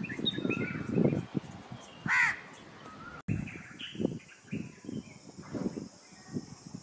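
Wild birds calling: a few short high chirps, then one loud, harsh call about two seconds in. A little past three seconds the background changes abruptly to a steady high hiss with scattered faint low sounds.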